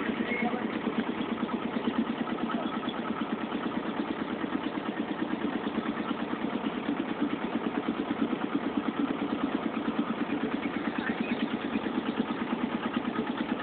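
Ferry boat's engine running steadily at an even speed while under way.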